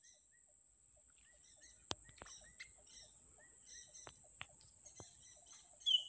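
Faint, short bird chirps repeating over a steady high-pitched insect drone, with a few light clicks. A louder, brief whistled bird note comes just before the end.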